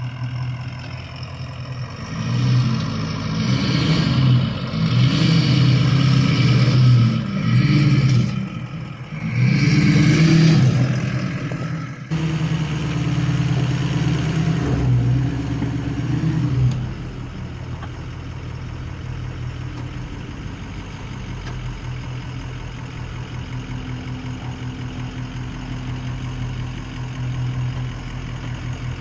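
Ford F-250's Powerstroke diesel engine revving in repeated surges under load on a rocky trail, then dropping about halfway through to a steady idle with a regular pulse.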